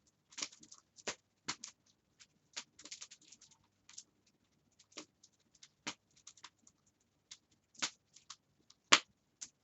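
Wood fire crackling in a fireplace: irregular sharp pops and snaps, with a loud crack near the end.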